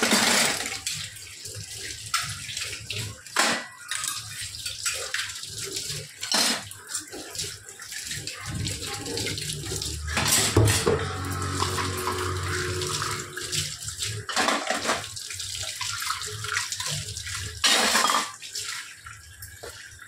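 Tap water running into a stainless steel sink and splashing over cups as they are rinsed under it, with a few brief, louder splashes now and then.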